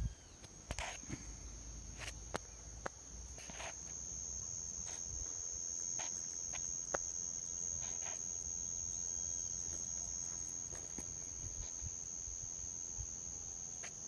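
Insects trilling in one steady high note, with scattered faint clicks and taps.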